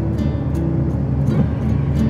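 Background music with held notes and a few sharp hits, over the steady low rumble of a car's cabin while driving on the highway.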